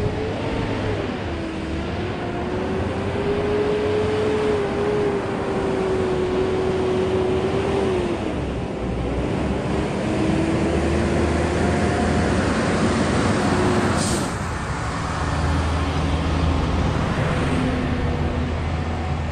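Road traffic noise from trucks and cars passing on a multi-lane road, with the steady drone of a truck engine. A brief sharp hiss sounds about fourteen seconds in.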